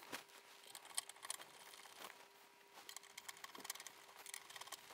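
Faint small clicks and scrapes of a hand screwdriver driving screws into the rear of a Commodore 8050 disk drive's steel case.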